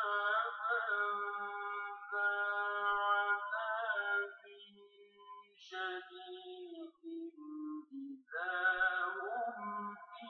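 Melodic Arabic Quran recitation: a solo voice chanting one verse in long, held, ornamented notes, in several phrases with short breaks between them. It is heard through a television speaker.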